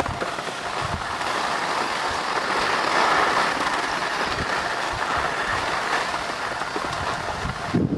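Skis sliding and scraping over packed snow with wind rushing over the microphone, a steady hiss as the skier glides downhill. Near the end the hiss drops off and a lower rumble takes over.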